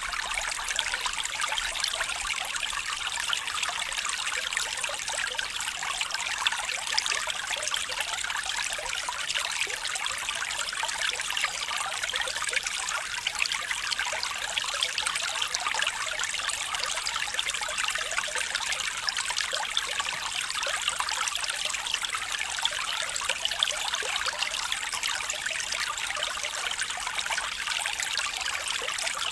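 Stream water trickling and flowing steadily.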